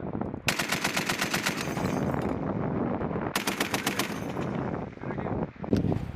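Machine gun firing two bursts of rapid, evenly spaced shots, the first a little under two seconds long and the second just over one second, followed by a single loud shot or thump near the end.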